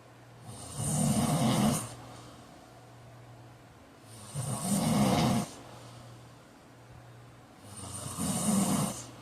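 A man snoring loudly in his sleep: three long, rough snores about three and a half seconds apart, with quieter breathing between them.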